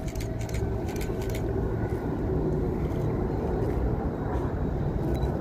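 Low, steady rumble of distant jet engines from Blue Angels display jets flying in formation, slowly growing a little louder.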